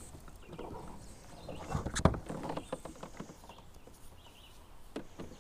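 Gear knocking and clicking on a kayak's hull: a cluster of knocks and clicks about two seconds in, the loudest a single sharp knock, then a couple of lighter knocks near the end.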